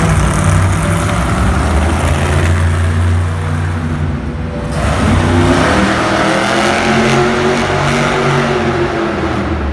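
Bigfoot monster truck's engine revving hard as it spins in circles on a dirt floor. The note dips briefly partway through, then climbs and falls in long sweeps.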